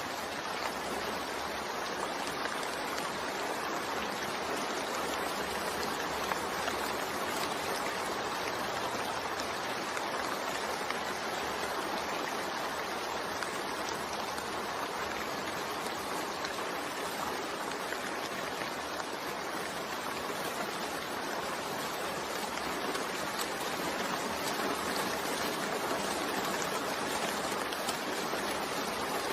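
Steady rain falling, an even unbroken hiss of many drops.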